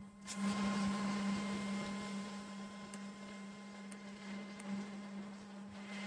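Blue Star split air conditioner running: a steady low hum with faint air noise, growing a little fainter over the first few seconds.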